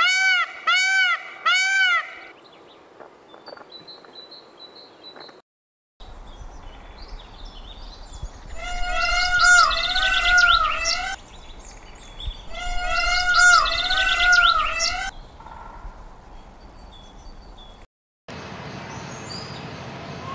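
Indian peafowl (peacock) calling: a run of loud, repeated calls about two a second at the start, each rising and falling in pitch, then two more bursts of calls later on, with smaller birds chirping in between. The sound drops out briefly twice.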